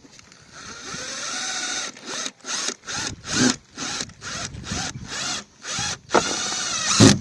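Power drill driving screws, whirring in a sustained run, then in several short bursts, then another longer run near the end, its pitch bending under load.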